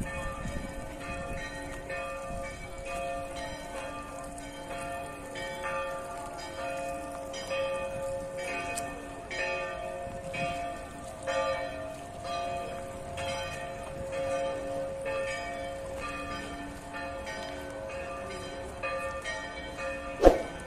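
Church bells ringing a continuous peal, many overlapping pitched strikes that keep sounding on top of one another. A single sharp click near the end.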